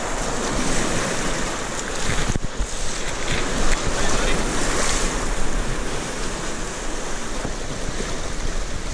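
Surf breaking and washing through knee-deep water at the shoreline, with wind buffeting the microphone.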